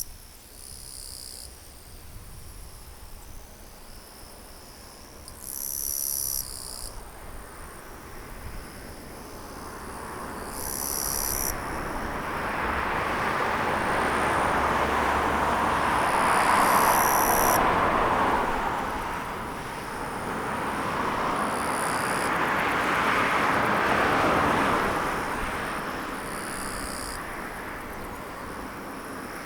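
Insects chirping in short high-pitched bursts, repeating every few seconds. Partway through, a broad rushing sound swells up, fades and swells again before dying down.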